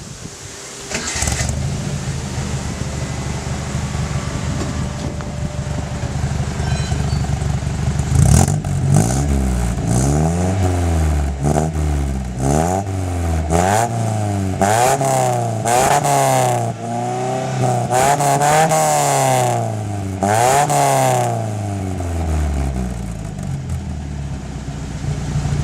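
Datsun 610's four-cylinder engine with a newly fitted exhaust. It starts about a second in and idles steadily, then is revved up and down about eight times before settling back to idle near the end.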